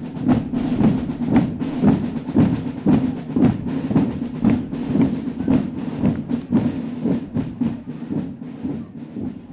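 Marching drum corps playing a steady marching beat on drums, about two strokes a second, fading a little near the end.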